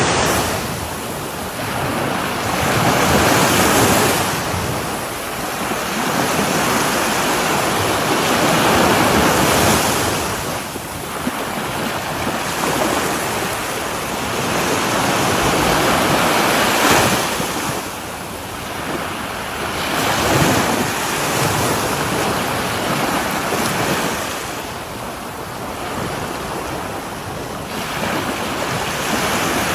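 Sea waves breaking on the shore: a continuous rush of surf that swells and falls back every few seconds as each wave comes in and washes out.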